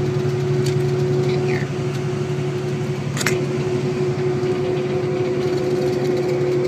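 Steady engine and road drone inside a moving coach, with a single sharp click about three seconds in.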